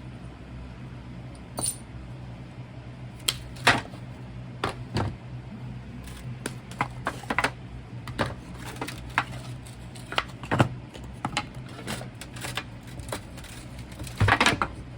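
Irregular metallic clinks and knocks as casting molds and freshly cast copper pieces are handled and opened, over a steady low hum. The knocks are loudest at about four seconds in and again near the end.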